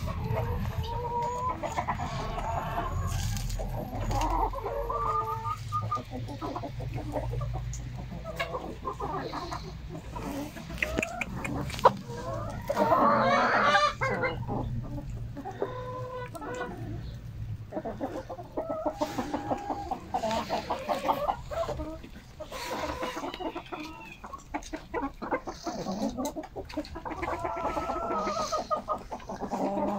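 Domestic chickens clucking: a steady run of short, repeated calls from several birds, louder and fuller around the middle.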